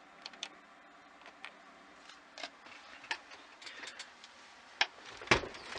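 Scattered light clicks and taps from dashboard buttons and the camera being handled, with one louder knock near the end.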